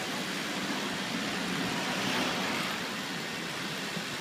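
City street traffic noise: a steady wash of passing vehicles, swelling slightly about two seconds in.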